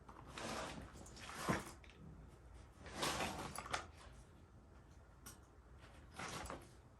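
Metal parts of a furnace blower assembly and tools being handled: several short bouts of scraping and clattering, with sharp knocks about a second and a half in and near the end.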